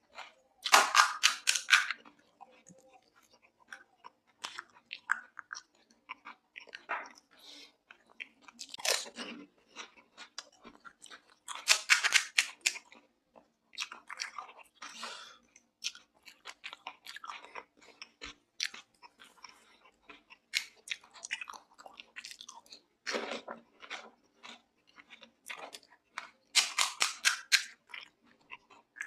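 Close-miked eating of pani puri: three spells of loud, rapid crunching as whole crisp puri shells are bitten, about a second in, about twelve seconds in and near the end, with softer wet chewing between.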